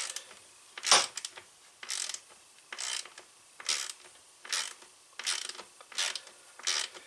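A hand ratchet driver being worked back and forth on the chainsaw's Torx screws, a short ratcheting rasp on each return stroke, about one stroke a second.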